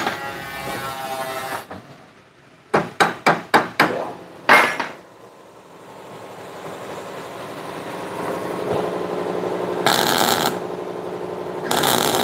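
A hand hammer knocks on a steel bus door hinge part: a quick run of about six sharp strikes, then one more ringing strike. Near the end MIG welding starts, the arc crackling and hissing in two short runs.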